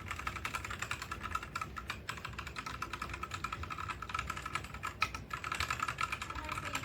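Fast typing on a DIERYA T68SE 60% mechanical keyboard with red linear switches: a dense, rapid run of keystroke clicks, with a brief pause about two seconds in.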